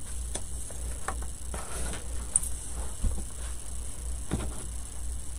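Faint rustles and small clicks of twine being threaded through painted wooden cutouts, over a steady low background hum.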